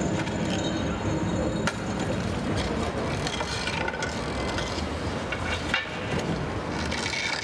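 Outdoor city ambience: a steady low rumble of traffic with an occasional sharp knock.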